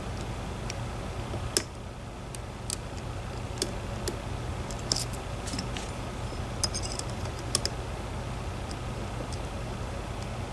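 Irregular light metallic clicks and ticks of a pick working the pins inside a DOM IX 10 dimple lock, spaced unevenly a few per second at most, over a steady low hum.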